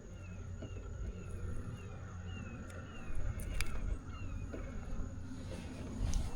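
A bird calling a quick series of short chirps that slide down in pitch, two or three a second, for about three seconds, over a steady low rumble, with a few sharp clicks later on.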